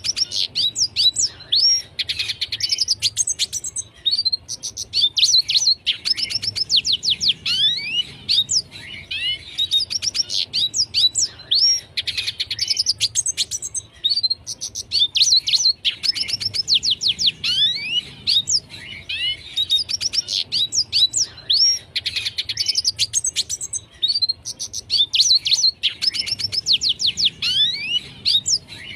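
Red siskin singing a fast, high-pitched twittering song: bursts of rapid downward-slurred notes, repeated every second or two without pause.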